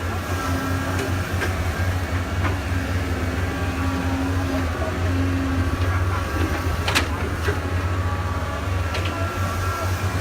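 Komatsu excavator's diesel engine running steadily with a deep, constant drone, with a few short metallic knocks and one sharp clank about seven seconds in.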